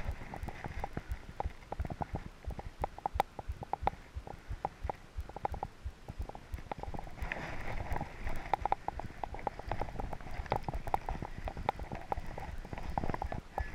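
Irregular soft knocks and clicks close to the microphone, from handling a fly rod and reel, over the steady rush of river water.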